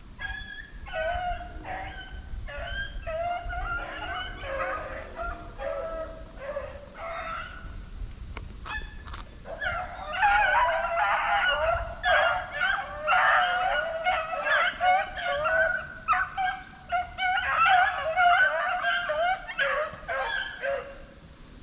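A pack of rabbit-hunting dogs baying and yelping together in overlapping calls, louder and fuller from about halfway through: the pack giving tongue as it runs a rabbit's track.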